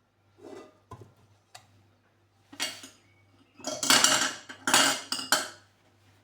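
Metal kitchenware, cutlery and dishes, clattering and scraping in a few short bursts, with the loudest around four seconds in after some lighter clicks.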